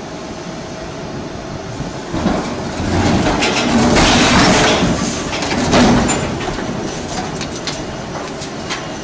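Doosan crawler excavator labouring as its bucket pries and lifts a huge stone block, with a rumbling grind of rock scraping on rock and on the steel bucket. The grinding swells about two seconds in, is loudest through the middle, then eases off.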